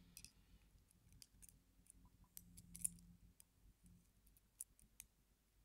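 Faint, scattered metallic clicks and ticks of steel tweezers against a lock cylinder, probing a pin chamber to work out a pin and spring, with a slightly louder click a little before 3 s and two more near the end.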